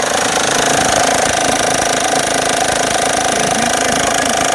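Honda Pilot's V6 engine running with a rapid, steady knocking and tapping clatter. The mechanic puts the noise down to the timing belt and water pump rather than a failed engine.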